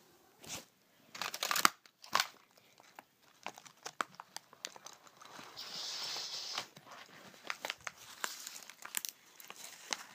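Scattered rustling, crinkling and light clicks from handling, with a denser rustle about six seconds in.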